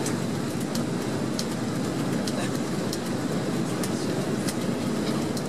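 Steady in-flight cabin noise of a Boeing 767-300ER on approach with flaps extended: an even rush of engine and airflow noise that holds at one level throughout, with a few faint high clicks.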